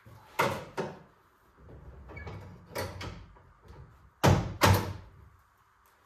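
Alfa Romeo Alfetta's open steel bonnet being handled: a few light metal clicks and clunks, then two sharp knocks about half a second apart just after four seconds in.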